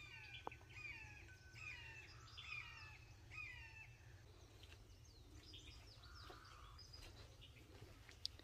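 Faint birdsong: a quick run of short, downward-sliding chirps in the first few seconds, then sparser calls, over a steady low background hum.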